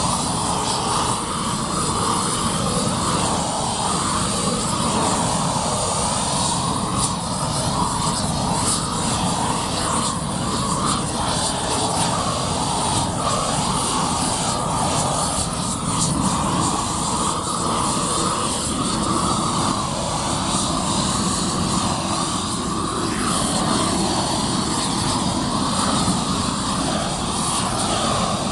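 Propane roofing torch burning steadily with a rushing roar, its flame heating the underside of a roll of torch-down modified bitumen membrane as the roll is laid.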